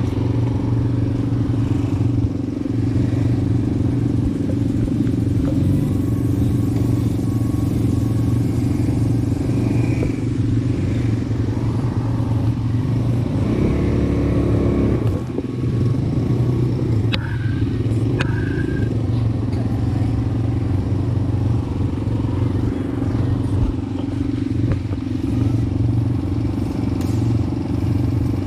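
ATV engine running with a steady low drone. Its note shifts for a second or two about halfway through.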